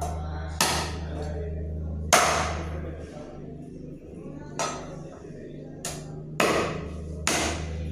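Heavy blade chopping goat meat and bone on a wooden cutting board: about six sharp, irregular chops.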